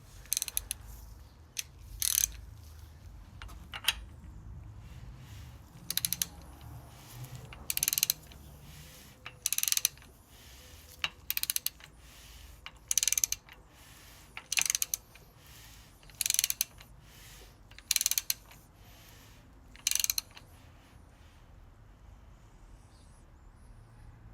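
Ratchet wrench clicking in short bursts, about a dozen of them roughly every two seconds, as the crankshaft of a 5.3 L LS V8 is turned over by hand to check that the timing chain marks stay lined up. The clicking stops about 20 seconds in.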